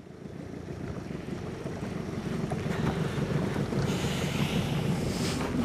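Small fishing boat's motor running as the boat moves across the water, a steady noise that grows louder over the first couple of seconds and then holds.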